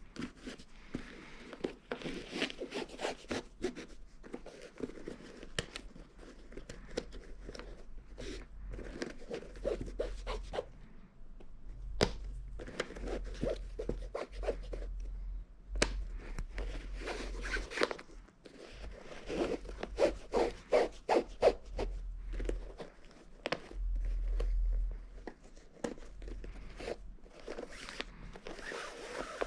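Shoelaces being pulled through the eyelets of a Puma MB.01 basketball sneaker while it is unlaced and relaced: runs of quick zipping rubs of lace against the eyelets, with soft handling thumps of the shoe.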